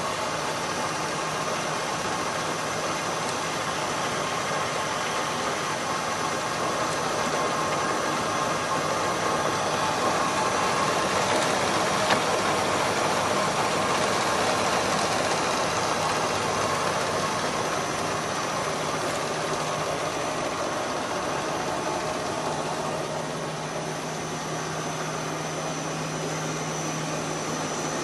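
IZh 250ITV precision lathe running under power, its spindle and drive, rebuilt with new spindle bearings and run from a frequency converter, giving a steady mechanical hum and whine. The sound grows a little louder from about eight seconds in, eases back about two thirds of the way through, where a low steady hum comes in.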